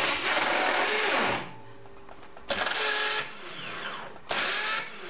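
BMW boxer motorcycle's electric starter pressed three times, each time spinning with a harsh grinding whir that cuts off and winds down with a falling whine, the engine not starting. The noise is the sign of a damaged flywheel ring gear.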